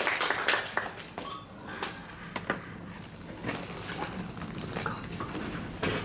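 Small audience clapping, dying away about a second in, followed by scattered light clicks and knocks over a faint steady room hum.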